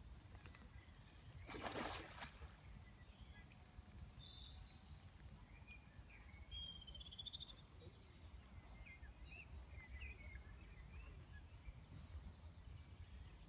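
Faint bird calls and chirps over a low, steady outdoor rumble, with a short rush of noise about two seconds in.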